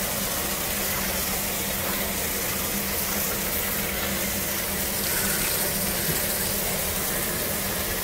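Water spraying from a hose nozzle onto blanched pork rib pieces in a tilted stainless-steel kettle and pouring off the rim into a plastic colander, a steady rush of water. The ribs are being rinsed to wash off the cloudy scum from blanching. A steady low hum runs underneath.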